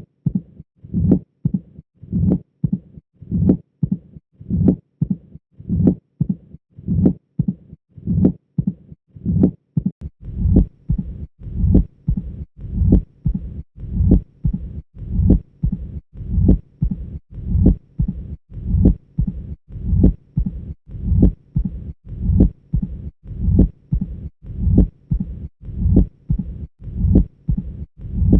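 Heart sounds of mitral stenosis, in the classic Duroziez rhythm: a loud first sound, a second sound with an opening snap, then a low mid-diastolic rumble that swells just before the next beat. The beats repeat steadily about once every 1.1 seconds. About ten seconds in, the sound becomes fuller, with a faint hiss added.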